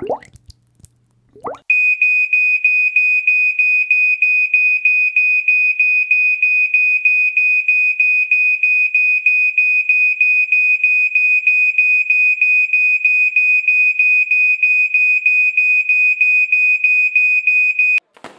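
Smoke detector alarm sounding: a loud, high-pitched beep pulsing rapidly without a break, starting about two seconds in and cutting off abruptly near the end. Just before it, a few water bubble plops.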